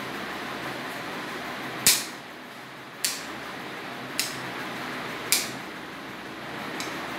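Dog nail clippers snipping through a dog's nails: four sharp clicks about a second apart, then a fainter one near the end, over a steady background hum.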